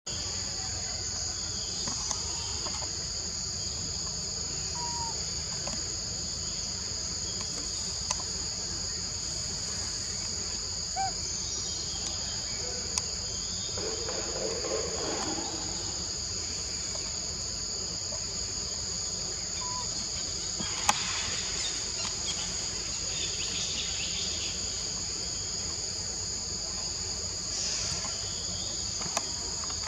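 Chorus of forest insects: a continuous high-pitched drone in two steady tones. A few sharp clicks and a brief rustle sound over it.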